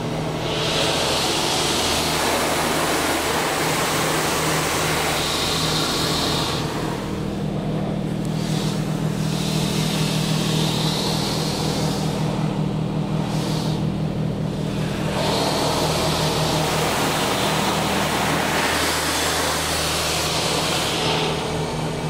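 LaserWash touch-free car wash spraying rinse water over the car, heard from inside the cabin as a loud hiss that swells and fades three times as the spray arm sweeps past, over a steady low hum. The speaker takes this stage for the final rinse.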